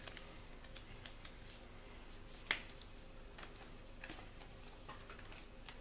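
Faint handling of paper leaflets and a cardboard phone box: a few light clicks and rustles, with one sharper tap about two and a half seconds in.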